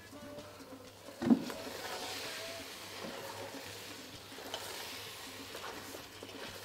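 A wooden spatula knocks once against the metal cooking pot about a second in. It then stirs raw rice through thick tomato stew, a steady wet scraping and rustling.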